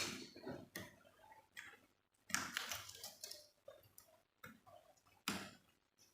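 Light, irregular clicks and scrapes of an M.2 SSD and small laptop parts being handled as the drive is seated in its slot, with the sharpest clicks about two and five seconds in.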